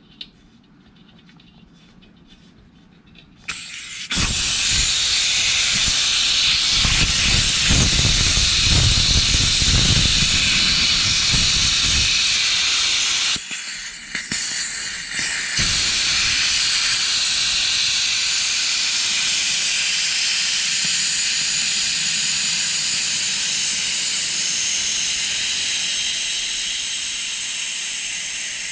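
Compressed air hissing out of a Craftsman air compressor tank through a newly fitted PowerMate brass drain valve opened to empty the tank, blowing condensed moisture out with it. The hiss starts about three and a half seconds in and is rougher and lower for the first several seconds. It briefly falls away about halfway, then comes back steady and tapers slightly near the end as the tank empties.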